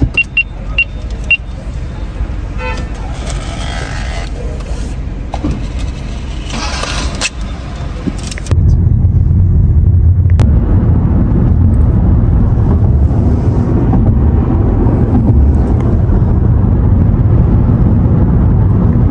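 Car cabin sound: a low engine and road rumble, with a few short electronic beeps from a handheld card payment terminal in the first second or so. About eight seconds in, it cuts to a louder, steady low road rumble of the car driving on the motorway.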